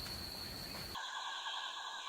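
Night chorus recordings: a steady high cricket trill over a hiss, then a sudden cut about a second in to a chorus of frogs trilling steadily.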